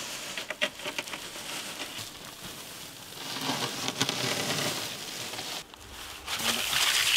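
Crisp deep-fried gram-flour sev strands crackling and crinkling as hands spread and loosen the heap, with scattered small clicks. A louder steady rushing noise starts near the end.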